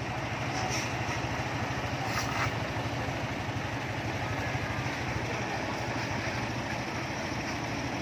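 Heavy diesel engine idling steadily, a low even rumble.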